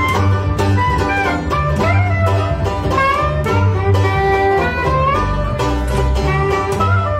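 Soprano saxophone playing a smooth, sliding melody over a strummed banjo and a plucked double bass: small acoustic jazz band playing live.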